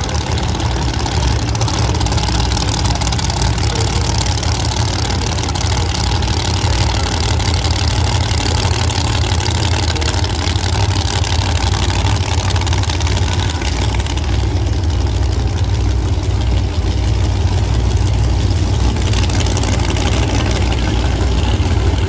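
Drag race car engines idling loudly at the starting line, a steady low rumble.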